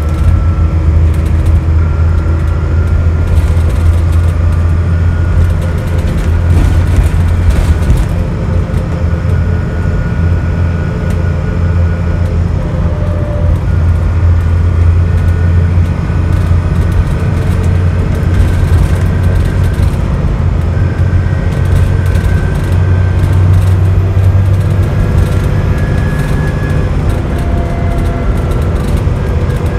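Dennis Trident double-decker bus heard from inside the passenger saloon, its engine working hard in a steady deep drone with a higher whine from the driveline above it. The engine note eases off about twenty-five seconds in.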